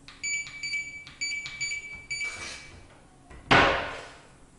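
Electronic code-keypad lock on a changing-room locker beeping in a quick run of short, high beeps as the code buttons are pressed. This is followed about three and a half seconds in by one loud thump that fades out quickly.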